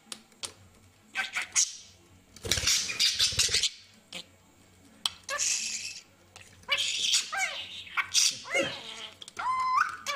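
Pet budgerigar making a run of short noisy calls that fit its imitated coughs and sneezes. In the last few seconds it chirps, with quick gliding whistle notes.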